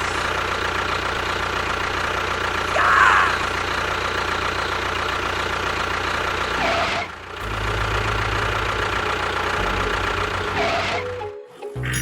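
A small engine-like motor running steadily. It dips briefly about seven seconds in, then carries on with a deeper hum.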